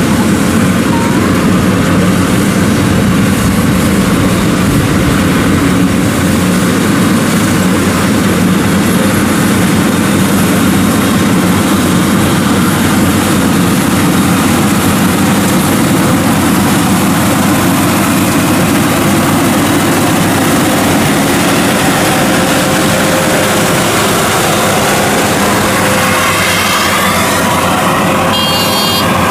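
WD115 Pro rice combine harvester running as it cuts and threshes rice: its engine and threshing gear make a loud, steady mechanical noise.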